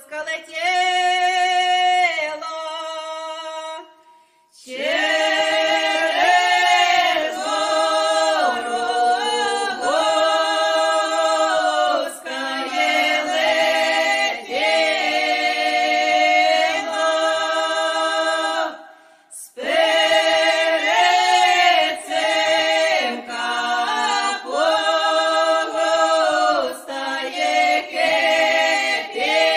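An unaccompanied choir singing a Ukrainian folk song, breaking off briefly between phrases about four seconds in and again about nineteen seconds in.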